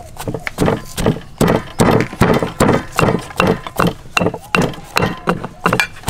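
Stone pestle pounding garlic, lemongrass and carrot in a granite mortar: steady rhythmic thuds, about two and a half strokes a second.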